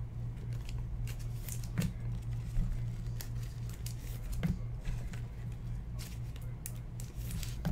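Trading cards being handled by hand: cards sliding and flicking against each other with soft scattered clicks, over a steady low hum.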